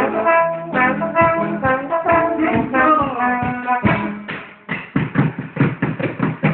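Jam-session music: a brass instrument plays a string of held notes for about four seconds, then drums come in with a quick, steady beat.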